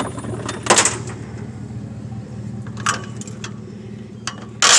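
A few sharp clacks and rattles as a rolled strap is pulled out of a plastic truck-bed toolbox, with the loudest clack near the end, over a steady low hum.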